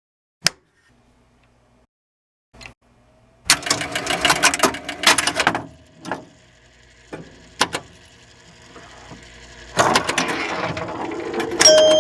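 Bursts of rapid mechanical clicking and rattling with single sharp clicks between them, then a swelling noise near the end and a few steady tones.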